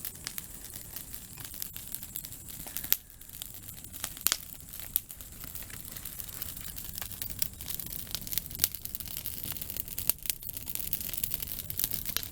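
Aspen firewood burning in a campfire, crackling with irregular sharp pops as it throws sparks and embers. The loudest pops come about three and four seconds in.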